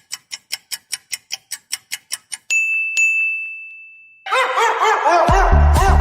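Rapid even ticking, about five ticks a second, then a bright ding struck twice that rings out over about a second and a half. Music with a heavy bass beat starts about four seconds in.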